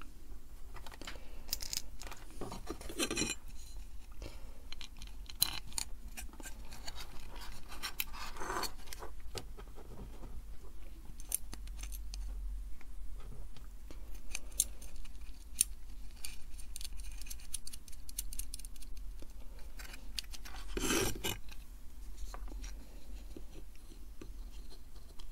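Metal and circuit-board handling noises: hands moving a die-cast heatsink and a small amplifier board, giving scattered clicks, taps and scrapes. Longer scraping rubs come about 3 s, 8 s and 21 s in. A low steady hum runs underneath.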